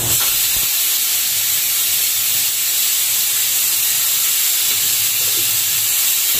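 Pressure cooker on a lit gas burner hissing steam steadily; the sound cuts off suddenly at the end.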